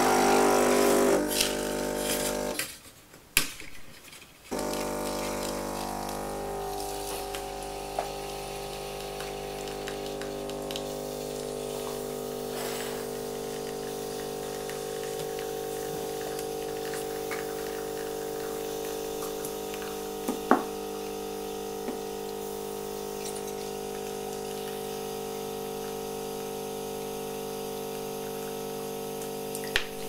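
The vibration pump of a Krups XP 3440 espresso machine humming steadily as it pulls an espresso shot. A louder run of the pump at the start cuts out for about two seconds before the steady hum takes over, with a few light clicks along the way.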